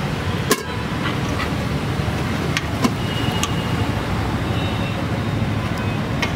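Steady street traffic rumble with a short car horn toot about three seconds in. Two sharp clicks, about half a second in and near three seconds, are a metal ladle striking a steel pot of curry.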